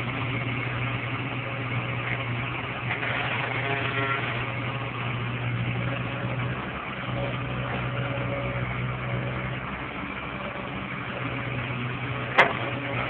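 Komatsu hydraulic tracked excavator's diesel engine running steadily while it digs, with one sharp knock near the end.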